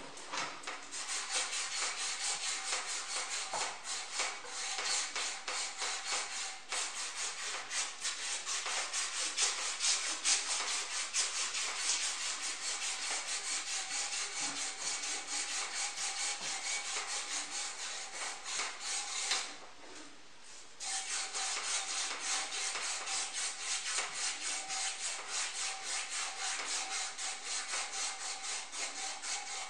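A thin metal support rod being hand-polished, with rapid back-and-forth rubbing strokes to bring the metal back to a shine. The rubbing stops briefly about twenty seconds in, then starts again.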